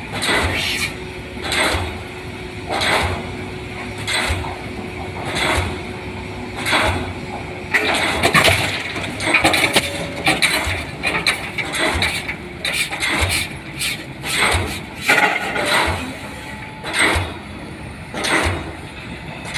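A DD 55 diesel pile hammer driving a pile, one sharp blow about every 1.3 seconds. For several seconds in the middle the blows and knocks come faster and less regular, then the steady rhythm returns.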